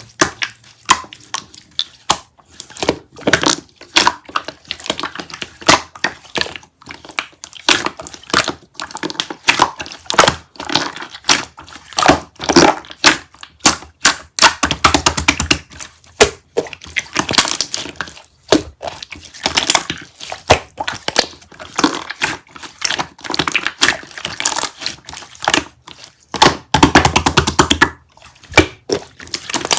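Close, continuous crinkling and crackling with many quick taps and clicks, like something crinkly being squeezed and handled.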